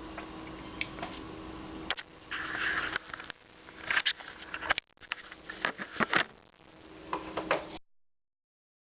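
Scattered clicks, knocks and short scrapes of handling over a steady low hum. The sound drops out briefly about five seconds in and cuts to dead silence near the end.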